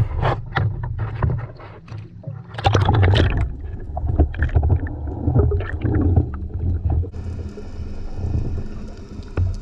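GoPro camera in its waterproof housing going under the sea surface and sinking: water splashing and sloshing against the housing over a low muffled rumble, settling about seven seconds in into a steadier underwater hiss.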